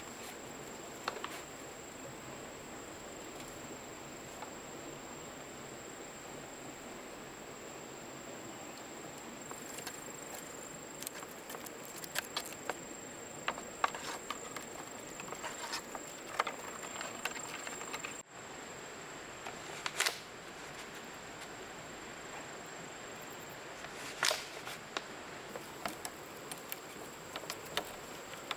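A steady high-pitched insect drone over jungle background hiss, with scattered sharp clicks and knocks of handling or work now and then.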